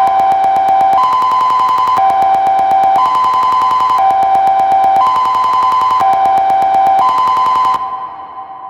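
Kockum Sonics Delta-4 TK alarm sounder giving its fire alarm signal: two tones alternating low-high, each held about a second. It cuts off near the end, leaving the tones fading away in echo.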